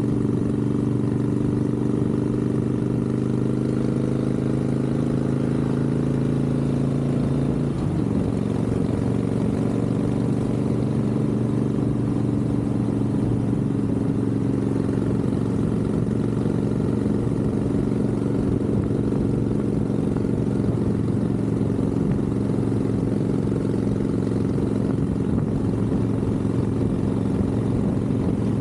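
Harley-Davidson Sportster 1200's V-twin engine running while the motorcycle cruises on the road. The engine note changes abruptly about eight seconds in, then holds steady.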